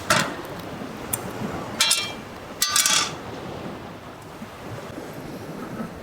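A few light clinks and clatters of small hard objects being handled in the first three seconds, the later ones ringing briefly, over a steady wash of wind and surf.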